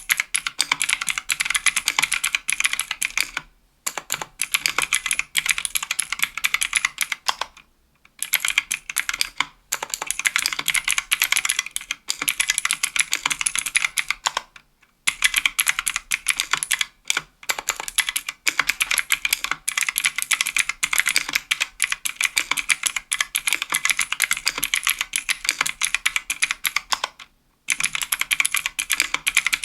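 Continuous fast typing on a 60% aluminium mechanical keyboard with Kailh Pro Light Green clicky switches (50 g) and GMK doubleshot keycaps: crisp, high clicks in long runs, broken by a few short pauses.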